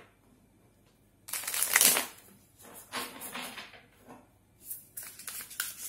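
Tarot cards being shuffled by hand: a loud burst of rustling cards about a second in, then shorter rustles and quick card clicks in the second half.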